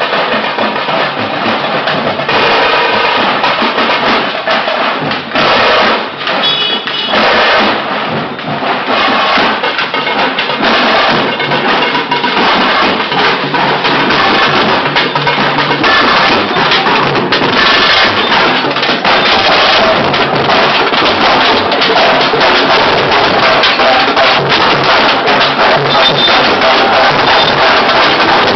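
Street procession band playing loudly: dense, rapid drumming with trumpets sounding over it.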